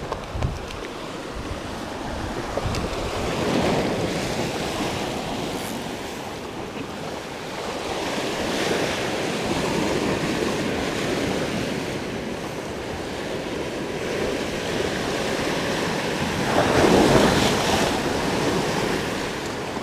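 Sea waves breaking and washing against a rocky shore, rising and falling in slow surges, the loudest near the end.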